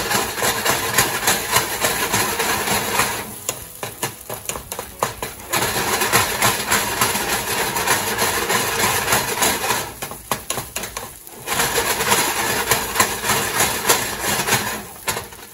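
Nonstick skillet of omelet eggs shaken back and forth on an electric coil burner and stirred with a wooden spoon: the pan rattles and scrapes on the coil. It goes in three spells, with short pauses a few seconds in and again about ten seconds in.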